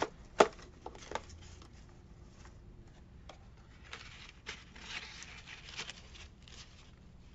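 Paper and craft pieces handled on a work table: a few sharp taps or clicks in the first second or so, the loudest about half a second in, then scattered light rustling and crinkling of paper.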